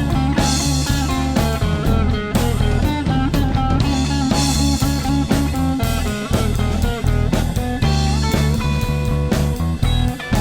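Rock band playing an instrumental passage: guitar lines with bending notes over bass guitar and a drum kit.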